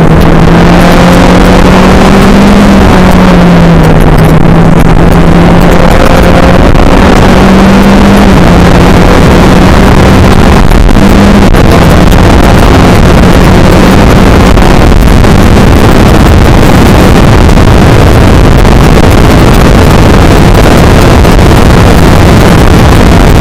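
Skip Barber race car's engine heard onboard at speed. The note steps up and down over the first dozen seconds, then sinks under heavy wind rush. The recording is overloaded and distorted.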